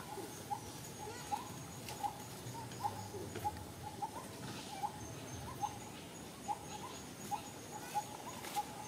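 Forest ambience: a calling animal gives short rising chirps at a steady pace, about one every three-quarters of a second, over a thin, steady, high-pitched insect drone.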